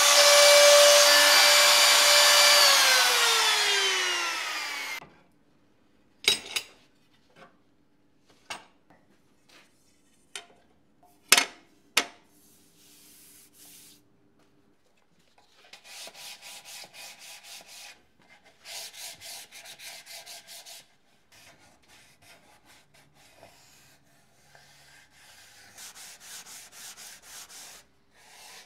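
A router with a trimming cutter runs at full speed, then is switched off and spins down in falling pitch, stopping about five seconds in. A few sharp knocks follow, then a wooden case is hand-sanded with sandpaper in runs of quick back-and-forth rubbing strokes with short pauses.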